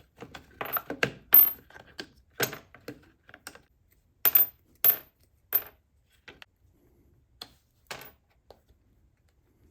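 Small steel drill and driver bits clinking against each other and a hard surface as they are handled and set down one after another. It is a run of irregular sharp clicks that thins out over the last few seconds.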